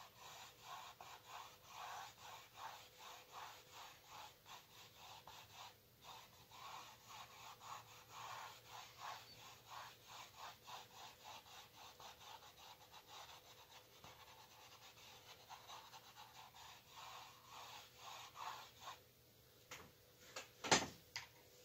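Paintbrush scrubbing paint onto a stretched canvas in quick, short, repeated strokes, two or three a second, faint and rhythmic, with two sharp knocks near the end.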